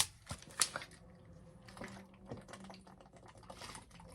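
Several sharp clicks and taps, three close together in the first second, then faint scattered tapping and rustling over a low steady hum.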